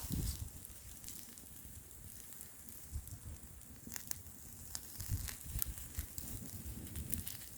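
Wood campfire burning, with scattered sharp crackles and pops over a steady hiss, and a low wind rumble that rises near the start and again about five seconds in.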